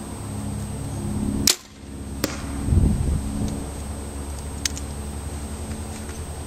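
A 2008 Elite GTO compound bow of about 72 pounds draw weight shot once: a sharp crack of the string at release about a second and a half in, a lighter click just after, then a dull low thud about a second later. Moleskin on the rest's launcher blades keeps the arrow from rattling as it leaves.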